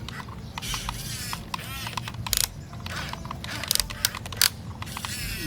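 Huina radio-controlled toy excavator working: small electric gear motors whining in short rising and falling runs, with rapid plastic clicks and rattles from its gears and parts.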